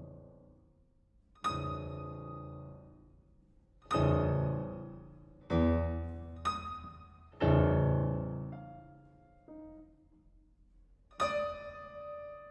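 Solo piano playing sparse chords, about six in all, each struck loudly and left to ring and die away before the next, with a couple of softer notes between them.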